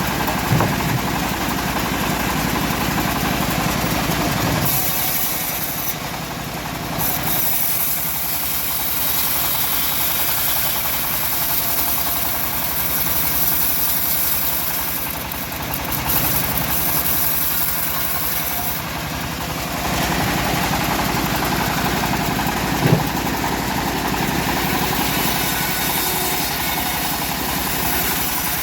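Homemade bandsaw sawmill running steadily as it saws a teak log, the sound of the cut changing a few times as the blade works through the wood. A single knock comes near the end.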